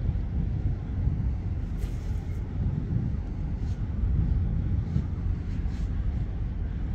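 Wind buffeting the microphone: a steady, uneven low rumble, with a few faint ticks now and then.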